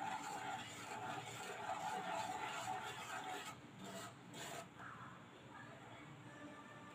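Wooden-handled spatula scraping and rubbing against the pan as urad dal flour is stirred into hot sesame oil, a soft rasping that grows quieter after about five seconds.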